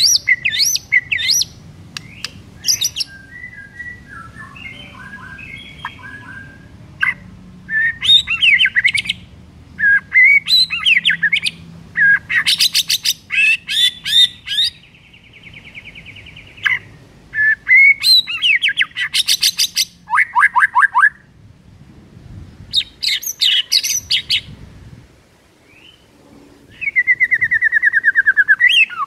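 White-rumped shama (murai batu) singing its varied song: loud phrases of sliding whistles, fast trills and buzzy rattles, coming in bursts with short pauses between them.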